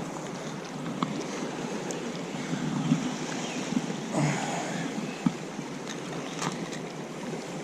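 Steady flowing river water with wind on the microphone, and a few faint clicks and knocks.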